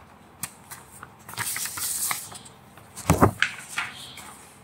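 A few soft clicks, then a short hissy rustle, and a brief louder noise about three seconds in.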